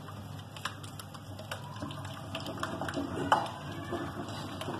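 A hand mixing thick gram-flour (besan) batter in a ceramic bowl: irregular wet sounds of fingers working the batter, with a sharper knock against the bowl a little past three seconds in.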